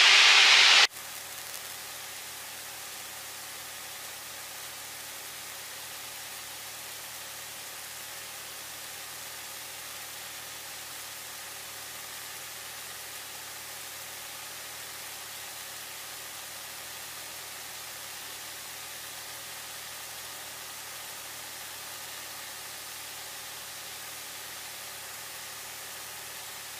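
Steady hiss of a light aircraft's headset intercom, with the drone of the single-engine Cessna faint beneath it. A loud burst of voice cuts off sharply under a second in.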